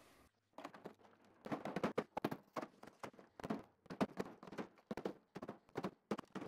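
Hammer repeatedly striking a block of dry ice inside a plastic ice chest, chipping it up into fine snow-like pieces: an irregular run of knocks, about three a second, starting about half a second in.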